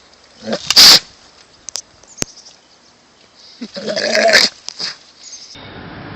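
An animal calling loudly twice: a short, very loud call about half a second in, then a longer pitched call a few seconds later.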